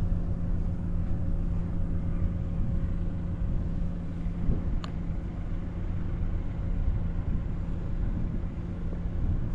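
A steady low engine hum with a low rumble underneath, and a single short click about five seconds in.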